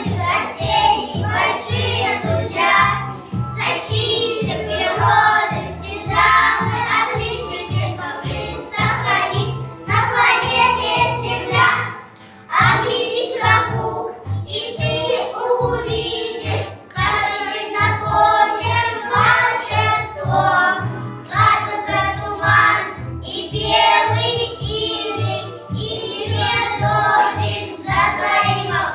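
A group of young children singing a children's song in unison over a backing track with a steady beat.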